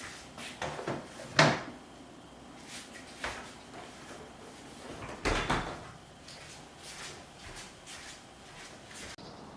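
Kitchen drawers and containers being handled: a series of knocks and clatters, the loudest about a second and a half in and a longer clatter a little after five seconds.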